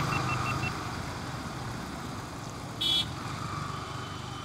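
Road traffic noise with a steady low engine hum, a quick row of short high beeps in the first second, and one brief vehicle horn honk about three seconds in.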